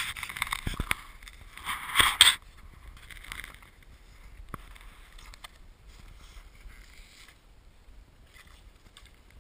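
Snow crunching and scraping in irregular scuffs, with two louder bursts in the first two and a half seconds and fainter ones after.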